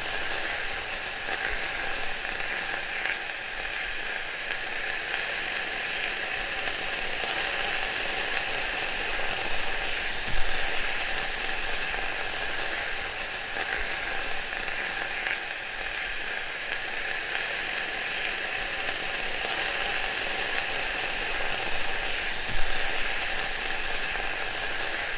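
Food frying: a steady sizzle, with a louder pop about ten seconds in and another near the end.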